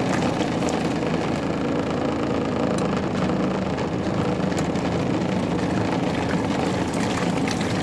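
Twin tub washing machine's wash motor running steadily on its normal setting, churning work pants in water with a somewhat rough agitation.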